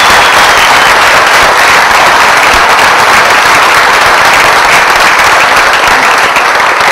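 Large audience applauding: dense, steady clapping that begins to thin out at the very end.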